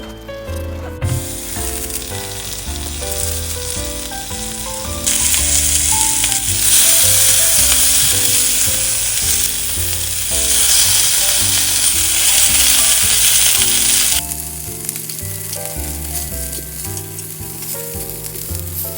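Food sizzling in a hot frying pan. It starts about a second in, gets louder about five seconds in, and cuts off suddenly about three-quarters of the way through. Background music plays throughout.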